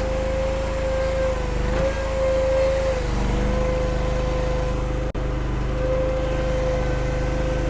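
Mini skid steer's small engine running steadily as it moves a trailer, with a steady high whine over the engine note and a brief cut-out about five seconds in.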